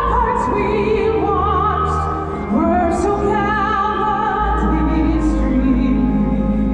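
Operatic singing with a wide vibrato on long held notes, over steady sustained accompaniment.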